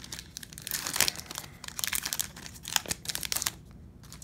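Foil wrapper of an Upper Deck MVP hockey card pack being torn open and crinkled by hand. The crinkling starts about half a second in, peaks around one second and again near three seconds, and stops about three and a half seconds in.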